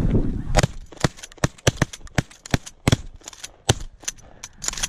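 A rapid volley of shotgun shots from several guns, about fifteen shots in under five seconds, some close and loud and some fainter. A flock of snow geese is honking at the start as the shooting begins.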